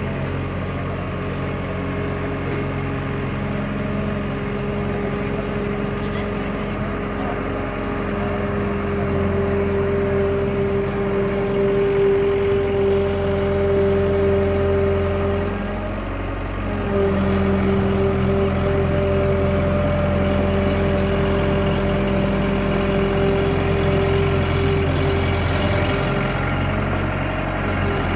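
ACE ACT 60 tracked combine harvester's diesel engine running steadily, dipping briefly about halfway through and then running a little louder.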